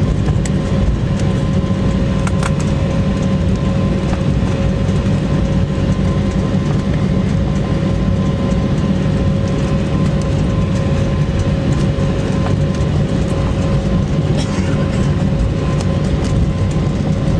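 Cabin noise of an Embraer 190 taxiing after landing: a steady low rumble from its turbofan engines and the wheels rolling over the concrete taxiway, with a steady hum on top and a few faint knocks.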